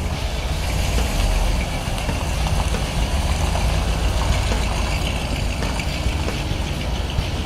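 1965 Corvette's V8 engine running steadily with a low exhaust note.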